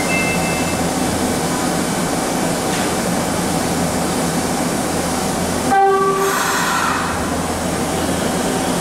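Kyoto Municipal Subway 10 series train at an underground platform, its steady running hum filling the station, with one short horn blast about six seconds in, followed by a brief hiss.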